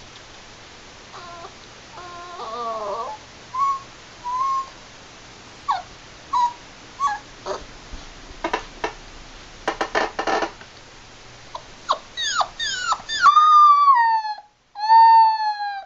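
A seven-week-old Labrador puppy whimpering with short, high, wavering squeaks and yips, with a brief run of scuffling noise around the middle. About thirteen seconds in, it breaks into two loud howls that fall in pitch.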